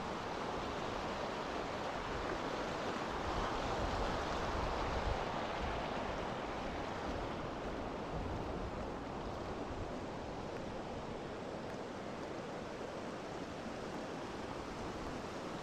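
Steady rushing outdoor ambience that swells a few seconds in, then eases to a lower, even level.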